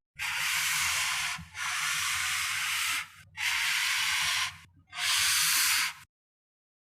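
Sliding sound effect: four hissing swishes, each about a second long with short gaps between, then the sound cuts off abruptly.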